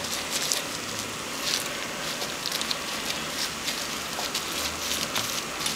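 Plastic wrap crinkling and rustling in irregular small crackles as hands press and roll a log of soft herb butter inside it.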